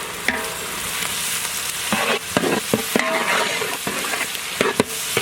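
Onions and ginger-garlic paste frying in oil and butter, sizzling steadily, while a spatula scrapes and clinks against the pan as it is stirred. The clinks come mostly from about two seconds in and again near the end.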